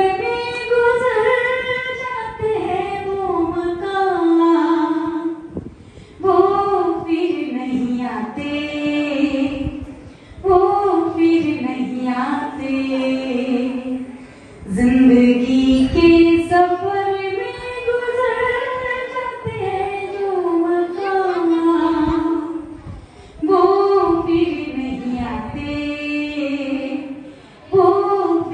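A woman singing a slow song solo and unaccompanied, in long held phrases that each rise and fall back, with short breaths between them.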